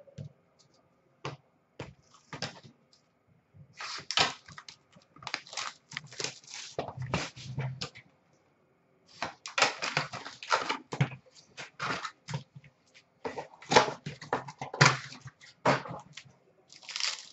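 Trading-card packs and cards being handled: crinkling wrapper and paper rustles in irregular bursts, with a short pause about halfway through.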